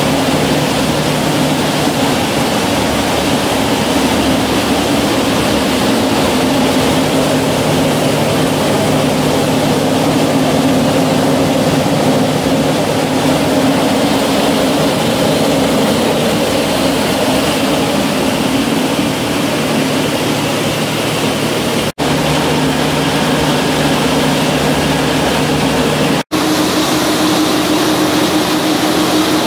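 Single-phase compact multipass rice mill running: a loud, steady mechanical drone with a low hum from its belt-driven huller and other stages. It cuts out for an instant twice near the end, and after the second break the hum sits at a slightly higher note.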